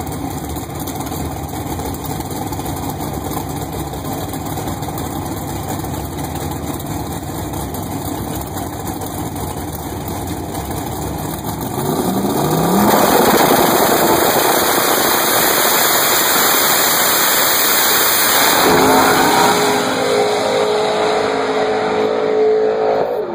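Drag race car's engine running at idle for about twelve seconds, then the car launches at full throttle, the engine note rising sharply and staying loud as it accelerates away down the strip, falling in pitch near the end.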